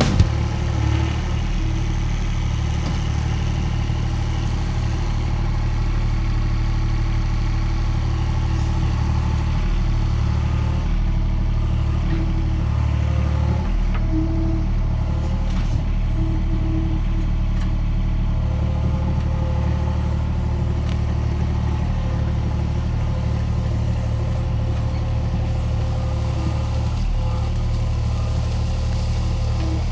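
Skid steer engine running at a steady speed.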